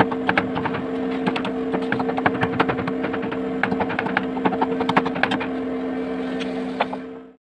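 A knife whittling a wooden spoon blank by hand: irregular sharp clicks and snaps of the blade cutting and splitting off wood chips, over a steady hum. Everything cuts off suddenly near the end.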